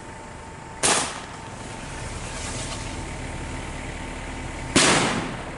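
Two firecrackers going off, one under a second in and one near the end: each a single sharp bang with a short fading tail.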